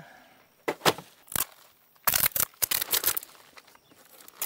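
Asphalt roofing shingles being handled and bent over a plastic sheet: a few short gritty rasps, then a denser run of scraping and crinkling about two seconds in.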